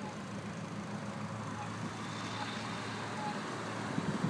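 Scania V8 diesel truck engine running as the truck drives around a roundabout, a steady low drone that grows slightly louder near the end.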